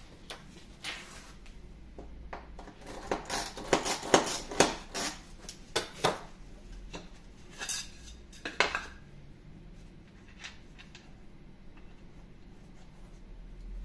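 Hand tools and small wooden parts being picked up and set down on a wooden workbench: a run of sharp knocks and light clatter, busiest three to five seconds in and dying away by about nine seconds.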